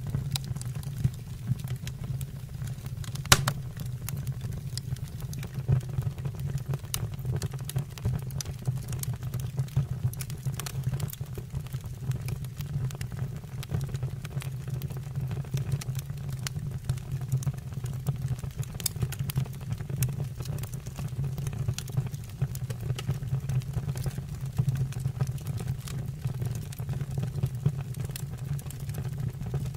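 Fire burning in a fireplace: a steady low rumble with frequent small irregular crackles and one louder pop about three seconds in.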